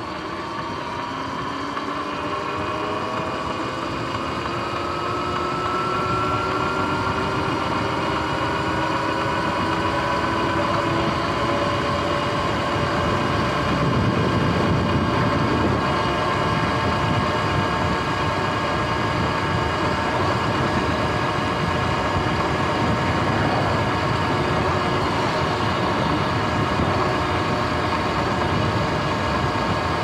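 Sur-Ron X electric dirt bike's motor and drivetrain whining, the whine rising in pitch as the bike speeds up over the first several seconds, then holding steady at cruising speed. Wind rushing over the microphone throughout.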